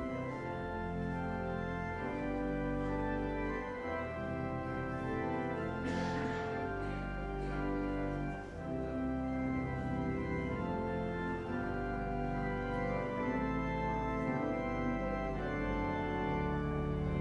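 Organ playing slow, sustained chords over a held bass, the chords changing every second or two, with a brief hiss about six seconds in.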